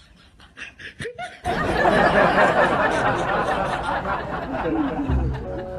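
Many people laughing together, starting suddenly about a second and a half in and going on loudly to the end.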